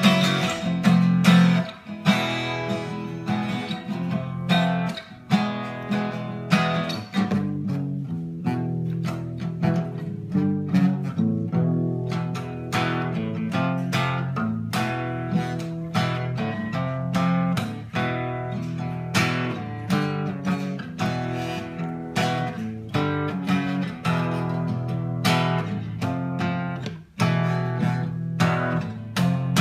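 Acoustic guitar played by hand, a steady run of strummed and picked chords.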